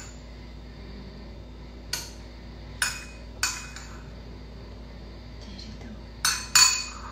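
A spoon clinking against a small ceramic bowl as fake blood is scooped out: five short ringing clinks, three spaced through the middle and a louder quick pair near the end.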